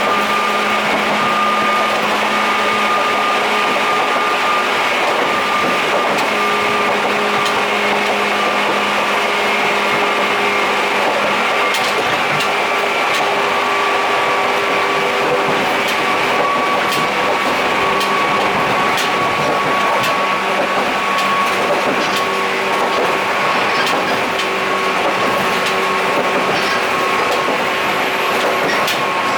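Former JNR 103 series electric motor car heard from inside while running: a steady traction motor and gear whine over loud running noise, its pitch sinking slightly, with scattered sharp clicks and knocks through the middle.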